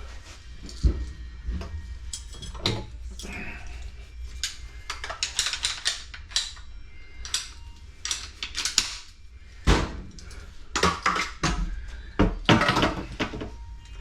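Metal plumbing fittings and tools being handled: irregular clinks and clatters, with a couple of heavier knocks, as a ball valve is fitted.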